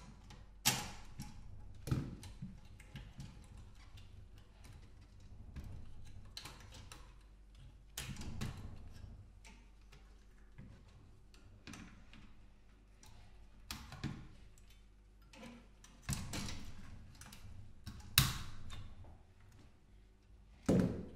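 Irregular clicks, snips and clinks of cutters and hand tools working on a CRT television's metal chassis and circuit board as its cables are cut, with a few louder clanks in the second half.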